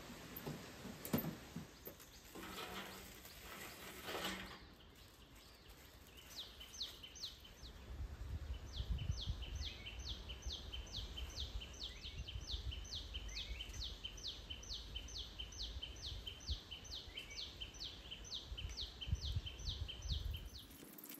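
A bird calling a long series of short high notes, each falling in pitch, about two or three a second, starting about six seconds in. A few knocks come in the first seconds, and a low rumble runs under the later part.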